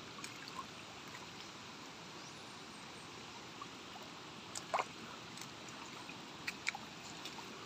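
Muddy rainwater runoff flowing over stones down a dirt footpath: a faint, steady rush of shallow water. A few brief sharp clicks come about five seconds in and again shortly after.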